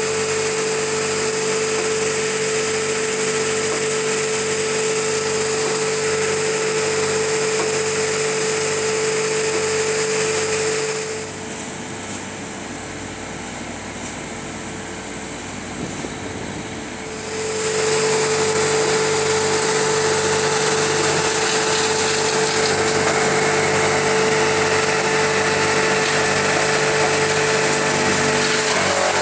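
Tow-behind wood chipper running steadily at full speed with a constant high whine, fed branches by an excavator grapple. The sound drops in level for several seconds about eleven seconds in, then comes back at full strength.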